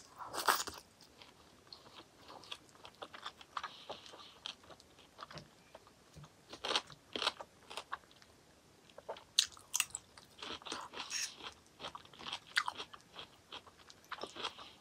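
Close-miked chewing of a mouthful of food, with irregular crisp crunching bites in clusters, loudest about half a second in and again from about six to twelve seconds in.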